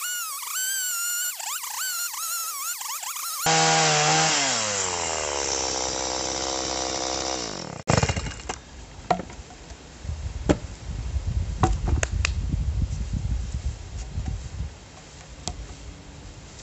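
Background music for the first few seconds, then a two-stroke chainsaw running hard, its pitch sinking steadily over about four seconds before it cuts off abruptly. After that, a low rumble with scattered sharp knocks.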